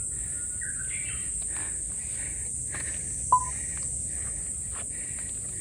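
Summer insects droning steadily at a high pitch, with softer calls repeating about twice a second. A single short, sharp click with a brief beep comes about three and a half seconds in.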